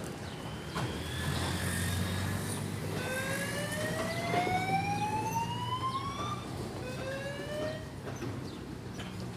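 Loram ballast-cleaning train's diesel engines rumbling steadily as it rolls in, with a high whine that rises in pitch several times, the longest and loudest in the middle, and scattered clicks.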